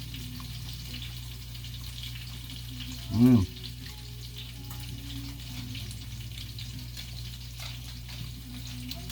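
Monkfish pieces sizzling steadily in butter in a frying pan. About three seconds in comes one short, loud pitched sound that rises and falls.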